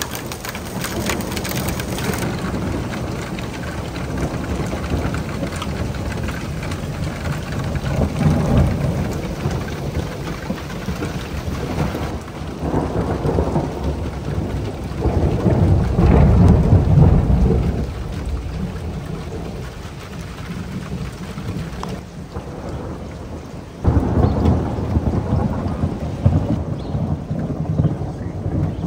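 Thunder rumbling again and again over steady rain, swelling about eight seconds in and loudest around sixteen seconds in. At the very start, hail ticks sharply on a plastic patio chair for a couple of seconds.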